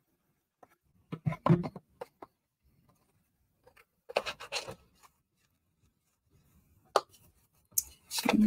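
Stiff cardstock being handled, slid and pressed on a craft mat as the glued flaps of a card box are held down: a few short bursts of rustling and scraping, with a sharp tap about seven seconds in.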